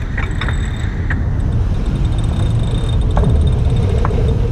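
Wind buffeting the microphone on a sailboat under way, a loud steady low rumble, with water rushing past the hull beneath it and a few scattered clicks.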